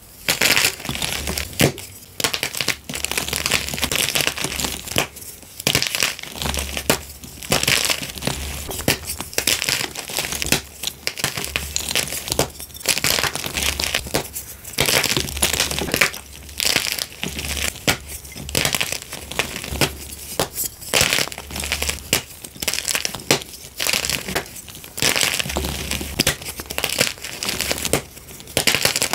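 Blocks of gym chalk crushed in the hands: dense, crunchy crumbling in repeated squeezes a second or two long, with short pauses between.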